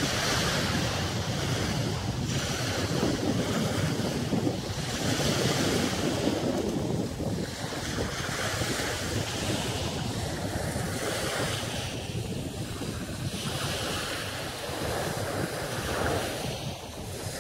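Sea waves washing onto a sandy beach, their hiss swelling every two to three seconds, with wind rumbling on the microphone.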